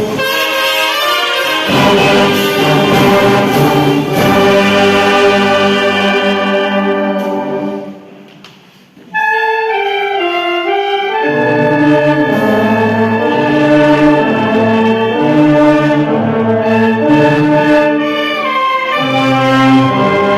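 Brass band playing a worship hymn, trumpets and trombones holding sustained chords. The music drops away briefly about eight seconds in, and a new phrase starts a second later.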